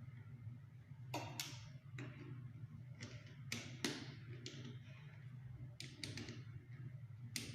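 Irregular light clicks and taps, about ten of them, from metal plumbing fittings and hand tools being handled during a bathtub mixer installation, over a steady low hum.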